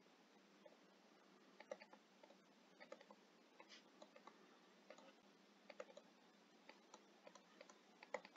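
Near silence with faint, irregular clicks and taps of a stylus pen on a tablet screen as words are handwritten.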